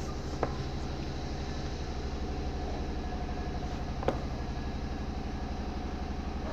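A steady low hum, with two sharp clicks about half a second in and about four seconds in as a plastic set square is set down on paper.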